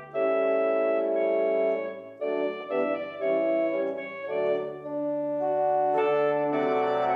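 Organ playing slow, sustained chords, with short breaks between phrases about two and four seconds in.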